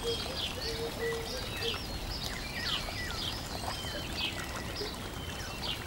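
Birds chirping in quick, short, falling notes over a steady rushing hiss, with a brief held tone in the first second and a half.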